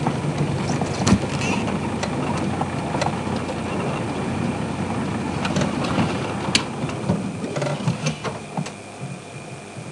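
Open safari game-drive vehicle driving slowly off-road through bush, its engine running steadily with scattered knocks and rattles from the rough ground; it gets quieter near the end.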